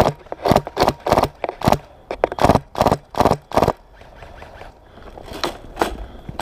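A rapid, irregular series of short sharp cracks, about three a second, pausing for over a second after the middle.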